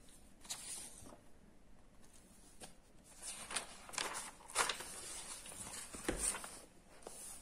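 Paper pages of a textbook being turned, a series of short soft rustles and swishes.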